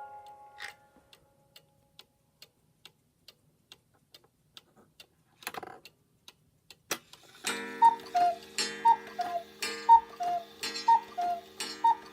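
Cuckoo clock ticking steadily, about twice a second, then a short rustle and a click as the call mechanism trips. The clock then calls five times, about a second apart, each a two-note falling cuckoo call with a sharp strike, over a steady held chord.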